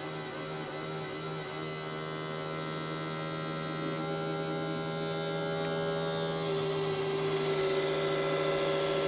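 Fresh food drawer fan assembly of a GE PFE29PSDCSS refrigerator humming with a steady low tone and higher droning tones that shift in pitch a few times, slowly getting louder: the faulty fan noise the fridge has developed.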